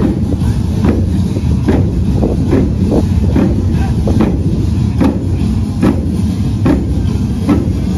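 Marching drums struck together in a steady beat, about one hit every 0.8 seconds, over a constant low rumble.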